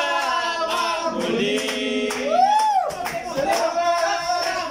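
Several men singing together along to a karaoke song over its backing music. About two seconds in, one voice slides up and back down in pitch.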